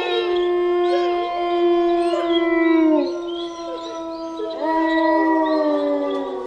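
Several wolves howling together in long, overlapping held howls. One howl falls away about three seconds in, and another rises in about a second and a half later.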